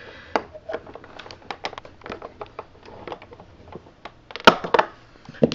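Scattered light clicks and taps of hard plastic from handling the base unit of a Westinghouse Unplugged cordless vacuum while working a small rubber bumper loose. A quick cluster of louder clicks comes near the end.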